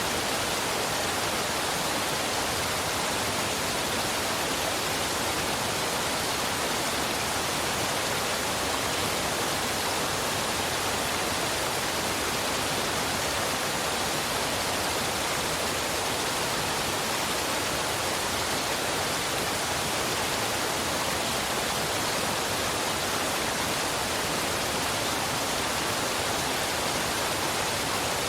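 Waterfall and river water rushing steadily: an even, unchanging hiss.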